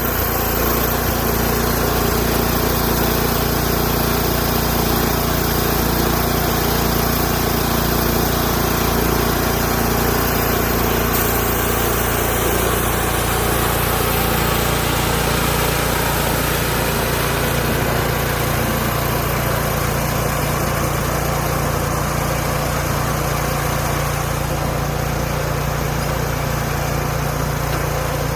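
Hud-son Homesteader 30 portable band sawmill's engine running steadily without a break, its sound shifting slightly partway through.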